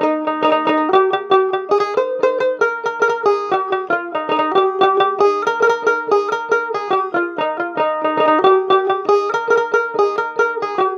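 Background music: a fast, steady run of plucked string notes, banjo-like in tone.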